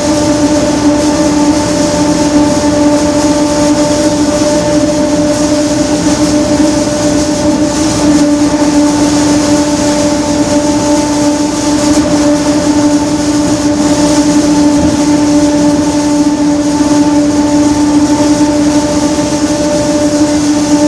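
Rear differential of a Mercedes-Benz OF-1721 bus howling very loudly: one steady whine with overtones, its pitch held constant, over the running noise of the bus. A howl like this is typical of worn ring-and-pinion gears.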